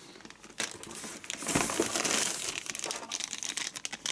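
Plastic packaging crinkling and rustling as small model railway accessories are handled and taken out, loudest around the middle, with light clicks of plastic parts.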